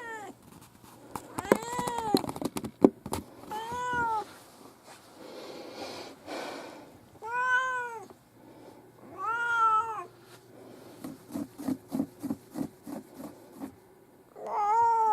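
A cat meowing about five times, each meow rising and then falling in pitch. Sharp clicks come between the first meows, and a quick run of short pulses comes near the end.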